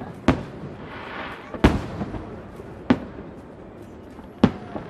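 Aerial fireworks shells bursting: four sharp bangs about a second and a half apart, with a patch of crackling just after the first.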